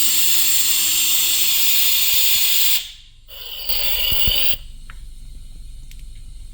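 Compressed air hissing through a pneumatic vacuum oil extractor, drawing a vacuum to suck engine oil out through its tube. The hiss cuts off a little under three seconds in, comes back for about a second, then stops.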